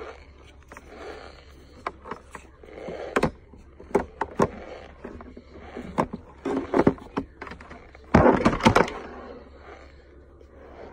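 Close-up chewing and crunching of starch chunks and powder, an irregular run of crisp crackles and clicks that is loudest about eight seconds in.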